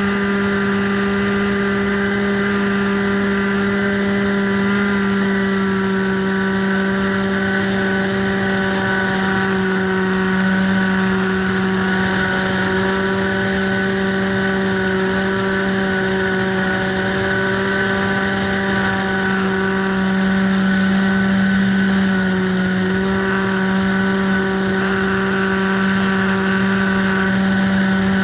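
Radio-control plane's motor and propeller running steadily in flight, a loud even hum whose pitch shifts slightly now and then as the throttle changes.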